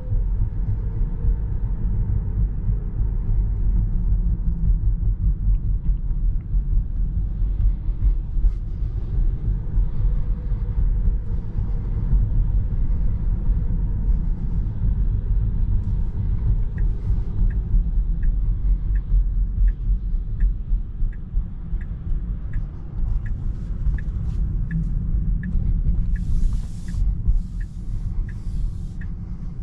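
Low road and tyre rumble inside the cabin of an electric Tesla Model 3 driving over city streets. From about halfway, the turn-signal indicator ticks steadily, about one and a half ticks a second, as the car turns into a side street. A few short hisses come near the end.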